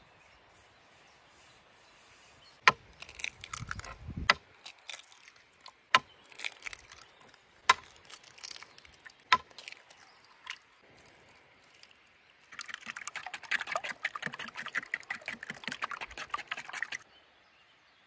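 Eggs cracked one after another into a wooden bowl: five or six sharp knocks spaced a second or two apart. Then, about two-thirds of the way in, the eggs are beaten fast with a wooden spoon in the wooden bowl, a quick clattering rhythm lasting about four seconds.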